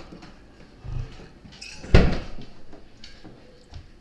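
A refrigerator door shut with a single loud thump about two seconds in, after a softer knock about a second in, followed by a few faint kitchen knocks.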